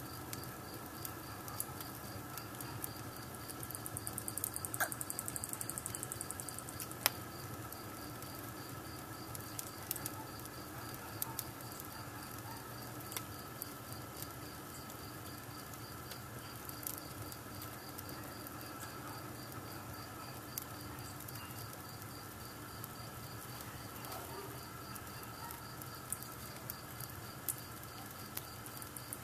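A small wood fire, with a paper-and-stick effigy burning on it in an arched adobe fireplace, crackling with scattered sharp pops over a soft steady hiss. The sharpest pop comes about seven seconds in. A faint steady high pulsing runs underneath.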